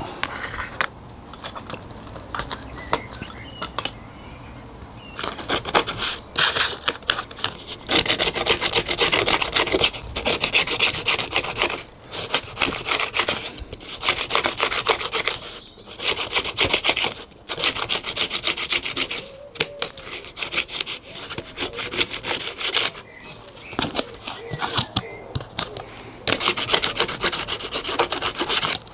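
Balsa wood being sanded by hand, rapid back-and-forth scraping strokes in runs of a few seconds with short pauses, quieter for the first few seconds.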